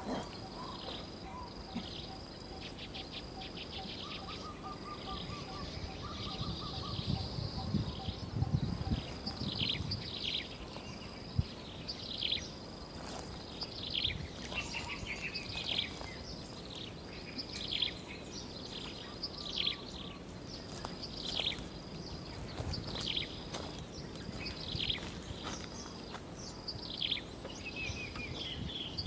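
Outdoor ambience with a bird calling repeatedly in high, sharply falling notes about once a second over a thin steady high tone. A fainter lower trill comes in briefly early on, and there is some low rumble in the middle.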